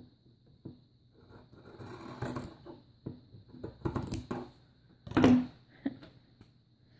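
Scissors snipping through fabric in a series of short irregular cuts, with the cloth rustling as it is handled, and one louder thump about five seconds in.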